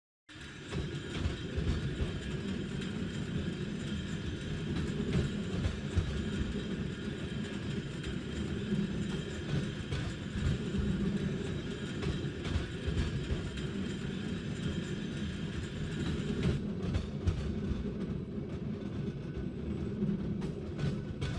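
Tram rolling along rails: a steady low rumble with light rail clatter and faint steady high tones above it, starting abruptly just after the start.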